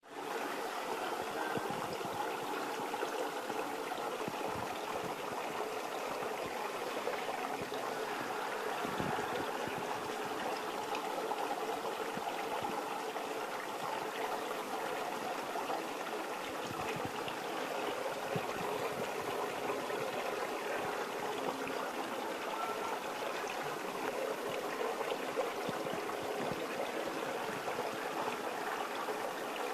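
Steady, unbroken sound of running water, like a flowing stream.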